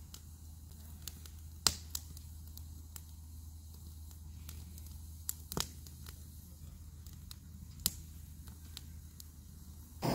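Wood fire burning in a folding fire stand, crackling with irregular sharp pops, the loudest a little under two seconds in and near eight seconds, over a faint low hum.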